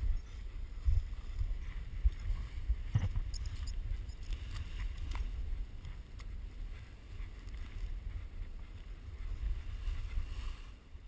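Wind buffeting the microphone of a paraglider pilot's action camera: a steady low rumble, with a few sharp knocks and rustles, the loudest about three seconds in.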